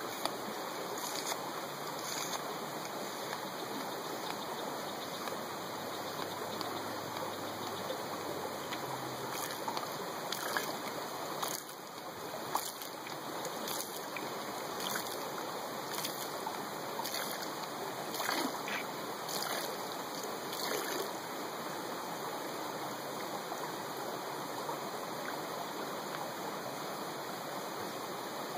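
Steady rushing of creek water, over which a Katadyn Hiker Pro hand-pump water filter is worked in regular strokes about once a second through the middle of the stretch, flushing the new filter before use.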